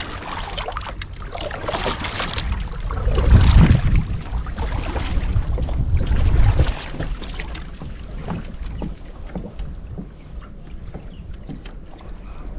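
Water splashing and sloshing around a fishing kayak, with wind buffeting the microphone in a low rumble. It is heaviest in the first half and then eases, with scattered small knocks.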